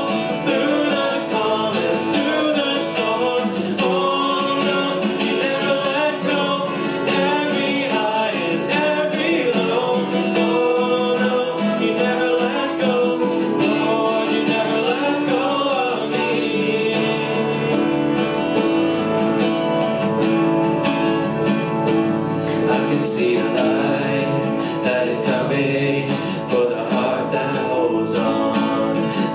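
Live worship music: acoustic guitar with keyboard accompaniment and singing.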